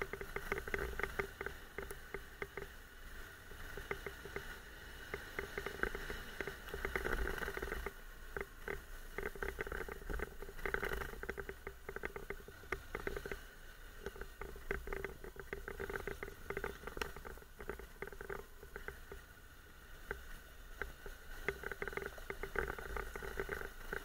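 Dense, irregular rattling and clicking from a motorcycle-mounted action camera shaken over a bumpy dirt track, with a low rumble underneath.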